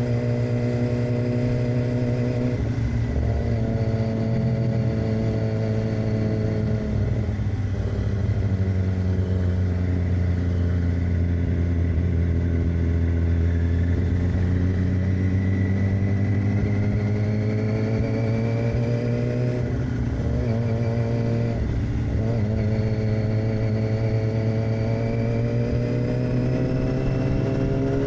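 2006 Yamaha R6's 600 cc inline-four engine running through an aftermarket AR exhaust while riding. The engine note falls and rises with the throttle, broken by a few short dips before it climbs again, with a long rising sweep near the end.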